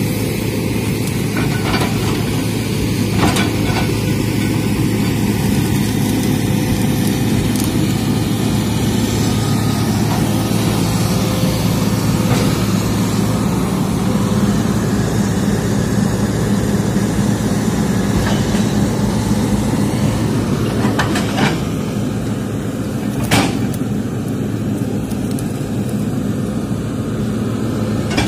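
Hitachi hydraulic excavator's diesel engine running steadily under digging load, with a few sharp knocks, the loudest about 23 seconds in.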